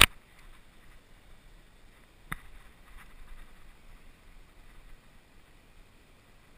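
A loud knock as a hand handles the camera, a single sharp click a couple of seconds later, then faint steady outdoor air and wind noise on the microphone.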